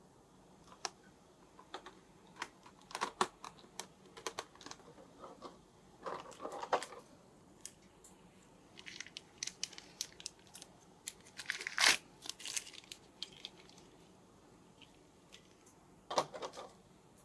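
Action-figure packaging being handled: scattered sharp clicks and a few short bursts of plastic crinkling and tearing, the loudest about twelve seconds in.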